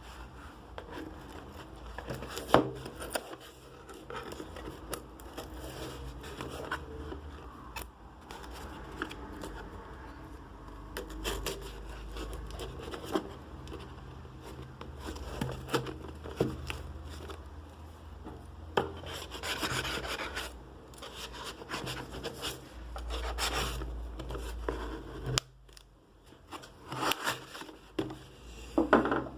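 Cardboard packaging and trading cards being handled: irregular rubbing, scraping and rustling with scattered clicks and taps, in denser bursts near the end.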